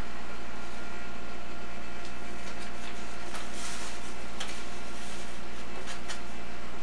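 Steady hum and hiss of an old home-video tape recording, with a few faint clicks and a brief soft rustle about three and a half seconds in.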